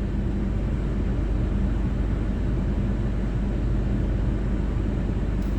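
Car engine and road rumble heard from inside the cabin, with a steady low hum.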